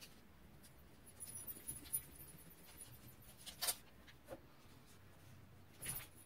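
Paper washi stickers rustling and crinkling as they are handled, peeled off and laid on a notebook page: scattered faint rustles and ticks, with sharper crackles a little past halfway and near the end.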